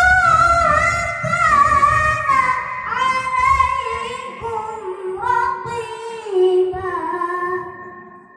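A boy reciting the Qur'an in the melodic qiro'ah style into a microphone, amplified through a sound system: long, ornamented held notes that step lower in pitch through the phrase, fading out near the end.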